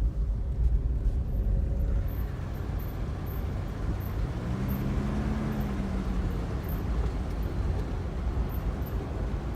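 Car driving slowly, heard from inside the cabin: steady low road and engine rumble, with a faint hum swelling and fading midway.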